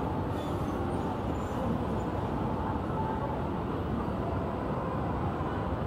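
Steady, dense background din of a busy public place: an even low rumble with no single event standing out.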